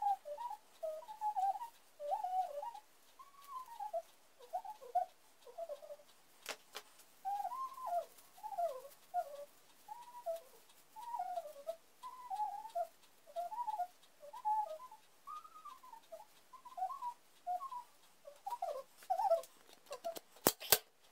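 A person whistling a tune in short, sliding notes, one after another with little pauses between phrases. There is a sharp click about six seconds in and a couple of sharp knocks near the end.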